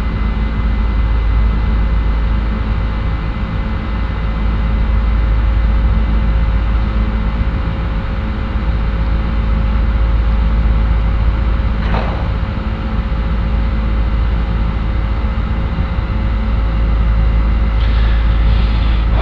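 Airbus A310 jet engines and airflow in a steady, loud drone with a low rumble and a few steady hums, as the airliner climbs after takeoff.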